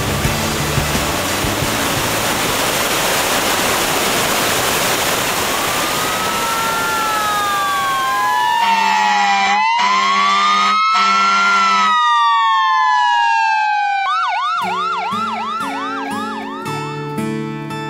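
Emergency vehicle sirens, laid in as a sound effect. Two wails glide slowly up and down, then switch to a fast yelp a few seconds before the end, over a low pulsing tone. A loud rushing hiss fades out as the sirens come in.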